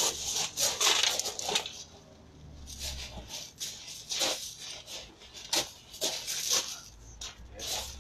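Shoes crunching and scuffing on loose gravel in quick, irregular bursts as two people dart about sparring.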